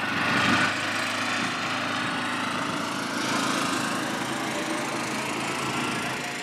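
A small engine running steadily, a low even hum.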